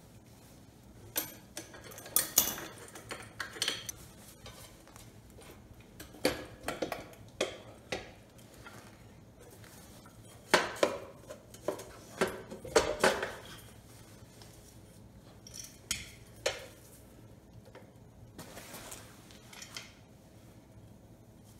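Irregular metal clinks, clatters and short scrapes: hand work taking a gear puller and a thin aluminium end housing off a portable generator's stator.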